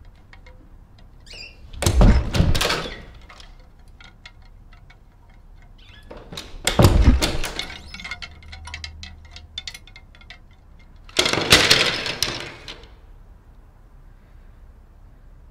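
A closet door banging three times, about four to five seconds apart. Each bang is a thud followed by about a second of rattling.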